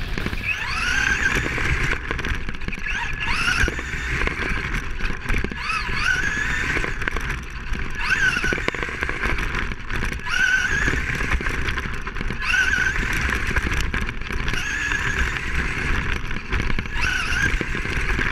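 RC race car's electric motor heard from a camera mounted on the car: a high whine that rises in pitch with each burst of throttle, repeating about every two seconds, over a steady low rumble.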